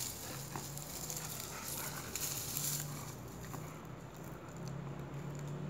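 Dry palm frond rustling and scraping as it is dragged across grass, the rustle dying down about three seconds in. A faint low hum comes and goes underneath.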